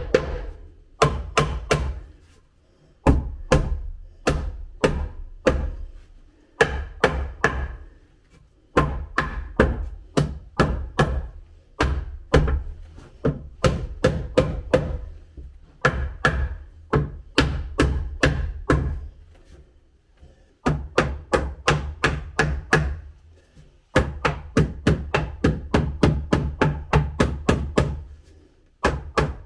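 Claw hammer driving nails into a wooden stair tread: runs of sharp strikes, about three to four a second, each run lasting a few seconds, with short pauses between nails.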